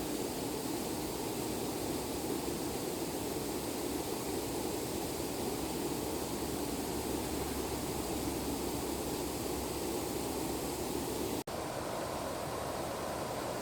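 Fast-flowing stream water rushing steadily. The sound cuts out for an instant near the end and comes straight back.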